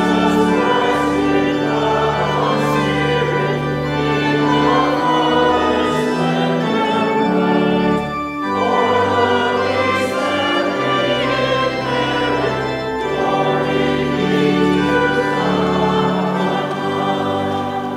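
Congregation singing a hymn to organ accompaniment, sustained chords over a moving bass line. There is a brief break between phrases about eight seconds in, and the last chord dies away at the very end.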